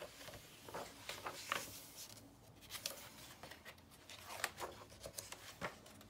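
Pages of a large hardback book being handled and turned: paper rustling and rubbing under a hand, with a scatter of short, crisp flicks.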